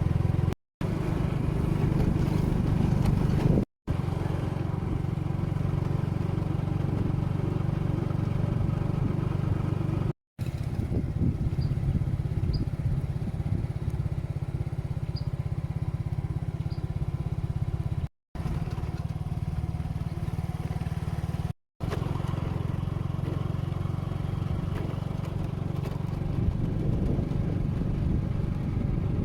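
Engines of construction machinery running steadily, with a deep low rumble. The sound is broken by several short silent gaps where separate clips are cut together.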